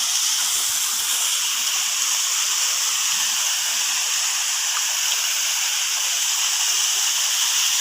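Waterfall: steady rush of falling water, a constant high hiss.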